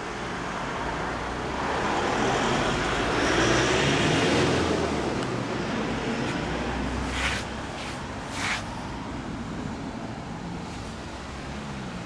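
Honda Motocompo's 106cc engine idling steadily through a Pentagon aftermarket silencer. A passing vehicle swells and fades over the first six seconds, and two short hissing bursts come a little past the middle.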